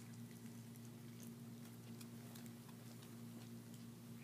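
Faint, irregular little clicks and smacks of German shepherd puppies chewing raw meat, over a steady low hum.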